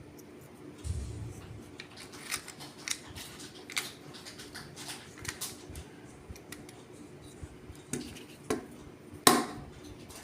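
Small plastic and metal parts of a molded case circuit breaker clicking and clacking as they are handled and fitted back into the case, a string of light clicks with a sharper knock near the end.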